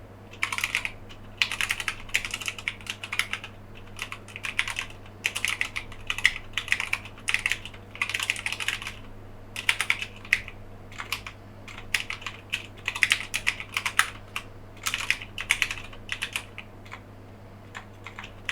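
Typing on a Keychron K8 wireless mechanical keyboard: bursts of quick keystroke clicks, each run lasting about a second, with short pauses in between.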